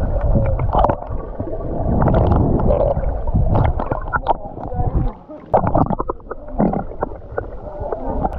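Water sloshing and gurgling around a camera held underwater, heard muffled and boomy, with irregular knocks and swishes from swimming movements.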